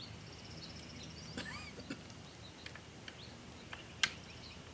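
Birds chirping and trilling faintly over quiet outdoor background noise, with a few soft clicks and one sharp click about four seconds in.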